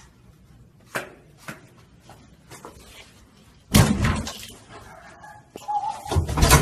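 Loud bangs on a hotel room door: a single heavy bang a little under four seconds in, then a flurry of hard knocks near the end, with a few light taps before them.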